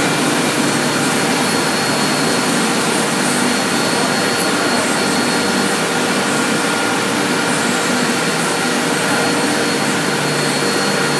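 Industrial machinery running steadily: an even, loud rush of air like blowers or fans, with thin high whines held on top.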